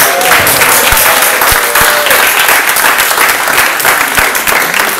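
A small crowd applauding and clapping, dense and steady.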